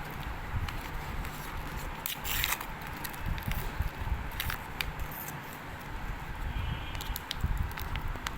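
Chocolate packaging crinkling and being handled, with scattered sharp clicks and a longer rustle about two seconds in, over a low rumble.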